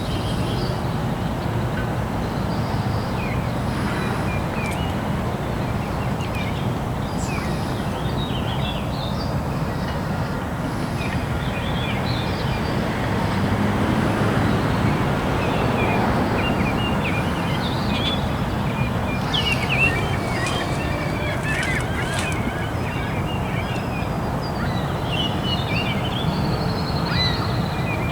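Waterside ambience: a steady low rumble with many short bird chirps and calls scattered over it, busiest a little past the middle.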